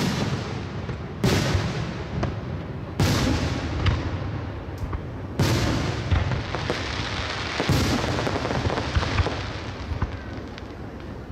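Aerial fireworks shells bursting overhead: a sharp boom every two seconds or so, with smaller bangs between, over a continuous crackle and hiss.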